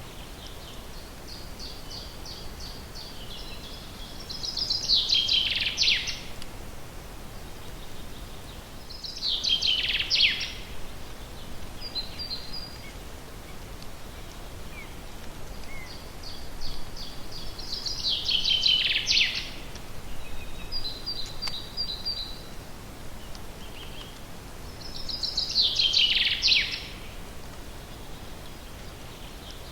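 Songbirds singing: four loud song phrases several seconds apart, each a quick run of notes falling in pitch. Quieter trills of repeated notes come between them, over a steady background hiss.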